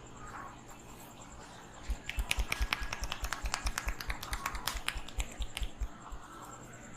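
Rapid percussive hand strikes on the head during an Indian head massage: sharp slaps and clicks with a dull thump under each, about six a second. They start about two seconds in and stop after about four seconds.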